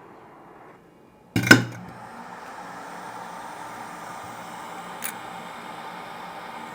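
A sharp click as a hot-air rework station is switched on, then its blower starts and runs with a steady whir. A small tick comes near the end.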